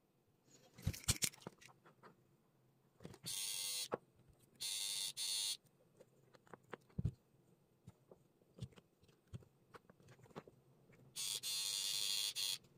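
Three bursts of steady electric buzzing, each about a second long, switching on and off abruptly, with light clicks and taps from handling small parts in between.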